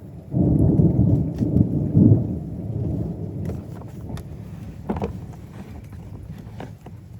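A thunderclap: a sudden loud rumble about half a second in that crackles for about two seconds, then rolls off and fades over the next few seconds. A few sharp taps stand out in the fading rumble.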